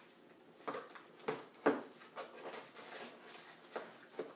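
Small cardboard box being opened by hand: its flaps pulled open and handled, giving a series of short, irregular crackles and scrapes of card, the loudest a little under two seconds in.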